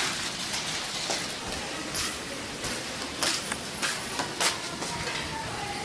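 Flip-flops slapping on a concrete floor as someone walks, about five steps roughly half a second apart, over a steady low hiss.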